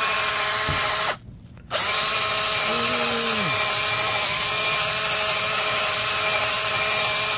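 Cordless drill spinning a wire wheel brush against brick pavers, scrubbing stains off the bricks. It runs at a steady speed, stops for about half a second around one second in, then starts again.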